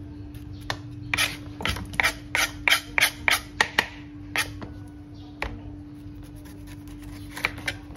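Kitchen knife working against a plastic cutting board and pineapple: a quick run of about ten sharp scraping strokes, roughly three a second, then a few single strokes and a pair near the end. A steady low hum runs underneath.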